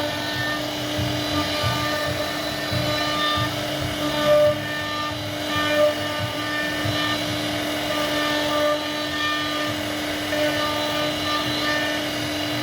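CNC router spindle running at a steady pitch as the bit carves hardwood, with the uneven grinding rasp of the cut beneath it.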